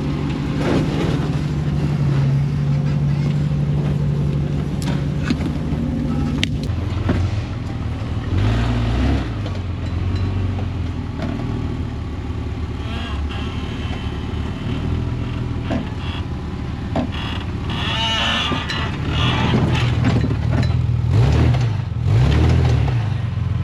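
Off-road vehicle's engine working at low speed while crawling through a trail obstacle, revving up and down in short pulls twice, with a few sharp knocks in the first third.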